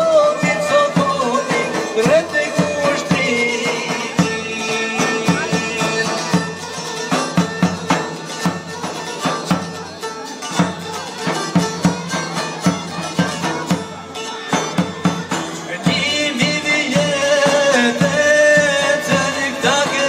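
Live Albanian folk music from a band of large double-headed bass drum, violin, keyboard and long-necked lutes, the drum strokes marking a steady beat under the melody.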